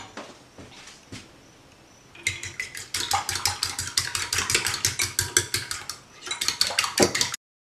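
A metal fork beating raw eggs in a ceramic dish: quick, rhythmic clicking of fork on ceramic, several strokes a second. It starts about two seconds in, dips briefly, resumes, then stops abruptly near the end.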